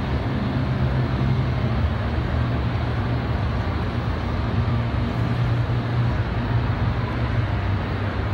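Steady background din of a large indoor exhibition hall: a low hum and a wash of noise with no distinct events.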